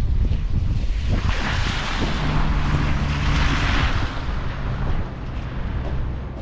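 Wind buffeting the microphone, with a vehicle passing on the snowy highway: a swell of tyre hiss from about a second in, with a low engine hum in the middle, that fades again by about four seconds.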